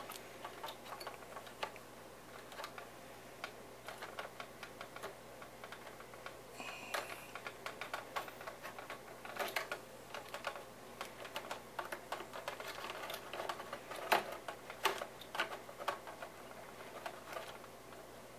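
Faint, irregular small clicks and taps of hands and a small hex driver working on a model helicopter's plastic and metal tail case and belt pulley, with a few sharper clicks partway through.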